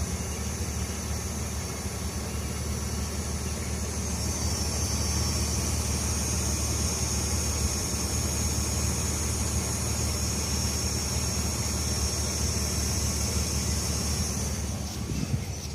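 BMW E46 ZHP's straight-six idling, with a steady high hiss over the engine hum that grows louder about four seconds in and stops near the end. The owner traces the loud hiss to a brand-new fuel pump at the right rear.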